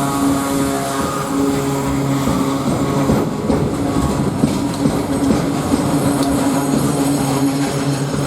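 Train rolling past slowly, its wheels clattering over rail joints, with a steady low hum running underneath.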